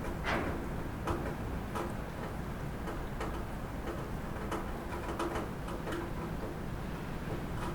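Rain falling on a roof: a steady patter with heavier drops ticking on it at irregular intervals, several a second.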